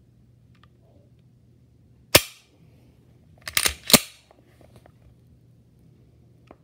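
Dry-fire clicks of an HK P30SK pistol's trigger and action: one sharp metallic click about two seconds in, then a quick cluster of three or four louder clacks about a second and a half later, and a faint click near the end.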